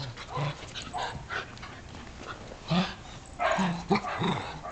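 Shetland sheepdog puppies and a dog play-fighting: a run of short growls and snarls, with paws and claws scuffling on a tile floor.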